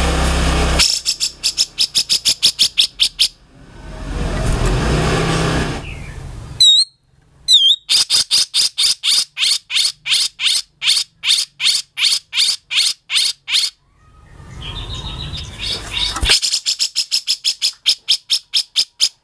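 Grey-cheeked bulbul (cucak jenggot) singing in its harsh style. Rough rasping calls alternate with fast runs of sharp high chirps, about five a second, and two short rising whistles come about seven seconds in.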